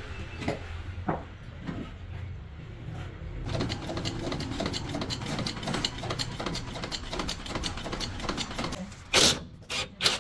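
Rapid mechanical clattering that starts about a third of the way in, over a low hum, followed near the end by two loud short bursts of noise.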